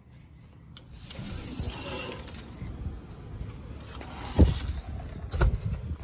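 Sliding glass patio door rolling open along its track, rumbling from about a second in, with a loud thump about four and a half seconds in and a sharp knock a second later.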